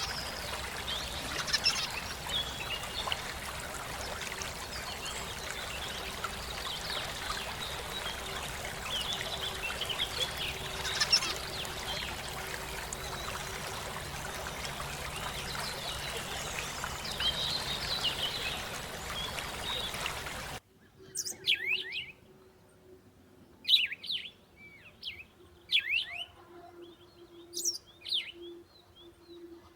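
Zebra finches calling with short, high chirps over a steady hiss. About twenty seconds in, the hiss cuts off suddenly and the chirps carry on alone, roughly one a second.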